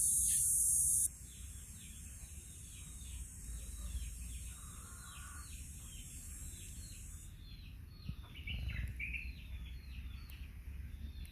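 A bird calling in a long run of short, quick, falling chirps, over a steady low rumble of wind on the microphone. A loud high hiss cuts off about a second in.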